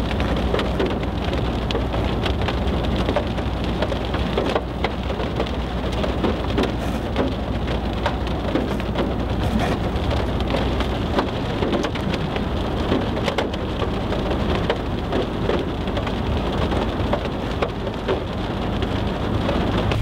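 Steady rain pattering on a car's roof and windows, many small drop hits over a low, steady rumble.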